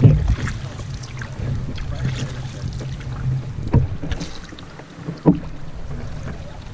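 Canoe being paddled on calm water: paddle strokes and swishing water. A loud knock comes right at the start and two more about four and five seconds in, over a steady low hum that fades after about four seconds.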